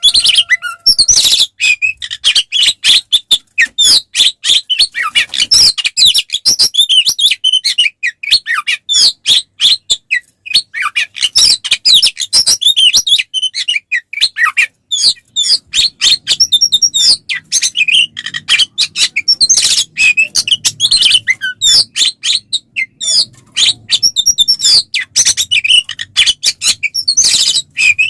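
Oriental magpie-robin (kacer) singing a loud, fast, nearly unbroken song of varied chirps, whistles and sharp rasping chatter. It is the aggressive 'fighting' song ('tarung') of a male in full voice.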